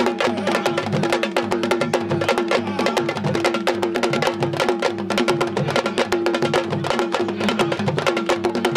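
Ensemble of djembe-style hand drums playing a fast, dense rhythm with many sharp strikes, with a steady hum underneath.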